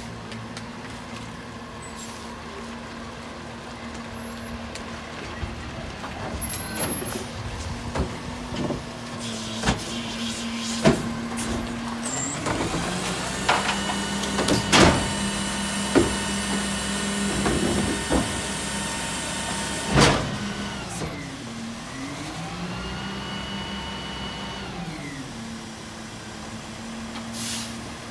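New Way rear-loader garbage truck idling, then speeding up and holding a raised pitch several times with a high whine as its hydraulics tip a cart into the hopper and cycle the packer. Sharp bangs through the middle are the cart knocking against the tipper and hopper.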